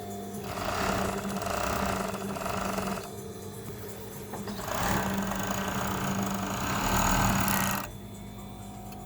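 Shunfa 757 overlock sewing machine, driven by a clutch motor, stitching a three-thread overlock seam on velvet in two runs of about two and a half and three seconds, with a short pause between. The motor's steady hum carries on through the pause.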